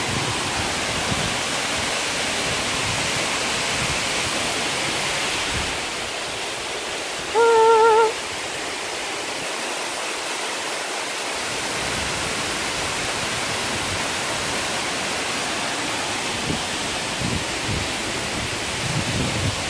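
Waterfall rushing steadily, full after recent heavy rain. About seven seconds in, a short wavering pitched note cuts through it for under a second.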